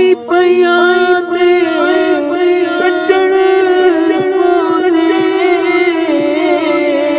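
A man singing solo, holding long drawn-out notes that bend and waver in pitch.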